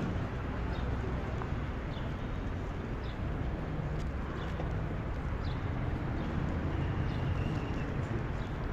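Steady low rumble of wind on the microphone and bicycle tyres rolling on asphalt while riding down a ramp, with faint short high chirps every second or so.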